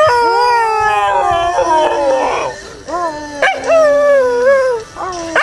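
Schnauzer-terrier mix dog howling: several drawn-out howls, each rising then sliding down in pitch, with short breaks about three seconds in and near the end. A person howls along at a lower pitch.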